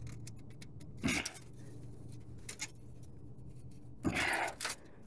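Light clicks and rattles of hands and a tool working at a motorcycle's oil filter, with a louder scrape about a second in and a longer, louder scuffing about four seconds in, over a faint steady hum.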